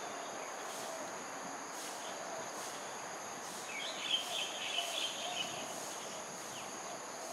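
Crickets trilling steadily, with a short burst of high chirping calls about four seconds in.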